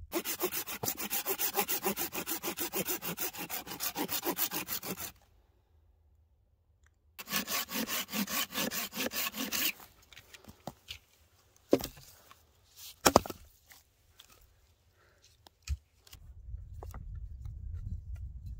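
Hand saw cutting through a dead branch for firewood in quick, even strokes: a bout of about five seconds, a pause, then a shorter bout. A few sharp cracks follow, the loudest about thirteen seconds in.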